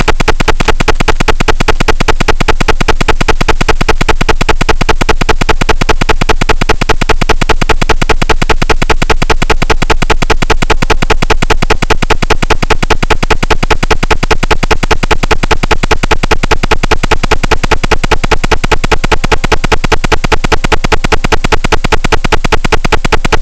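Loud, steady buzzing static on the analog FPV video receiver's recorded audio track: a fast, even pulsing hiss that does not change.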